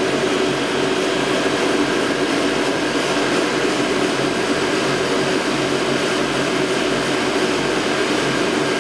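Electrovert Electra wave solder machine running: a steady whir of air and machinery with a faint low hum and no change throughout.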